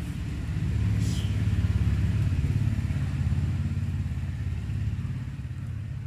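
A motor engine running with a low, pulsing drone that swells about a second in and eases off near the end. A brief high chirp sounds about a second in.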